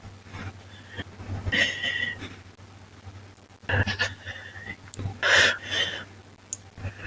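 Breathing: three loud breaths of about a second each, some with a thin whistle in them.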